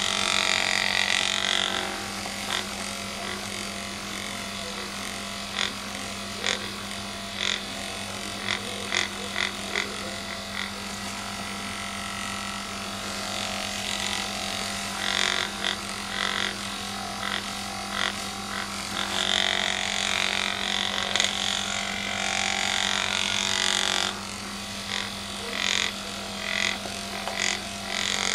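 Magnessage handheld massager running with a steady electric hum while it is rubbed against a cat's fur. Scattered clicks and stretches of brushing, rustling noise come and go over the hum.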